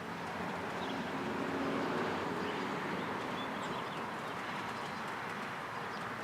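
Steady outdoor background noise that swells slightly during the first two seconds, with faint bird calls over it.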